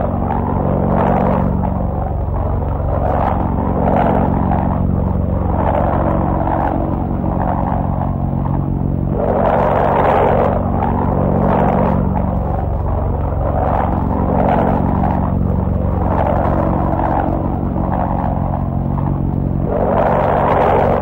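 Kalinin K-5 airliner's propeller engine droning steadily in flight, with a rushing noise that swells and fades every second or two.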